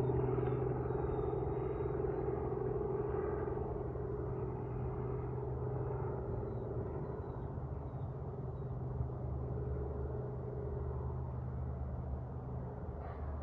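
Aircraft engines making a steady drone with a low rumble that slowly fades away.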